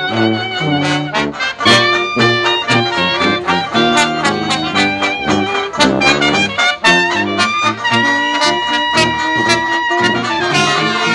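Trad jazz street band playing: clarinet, trumpet, trombone, saxophone and sousaphone over a banjo's strummed beat. A long held note sounds about eight seconds in.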